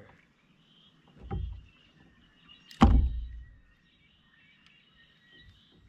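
Two knocks against a plastic kayak: a soft thump about a second in, then a loud, sharp knock near the middle.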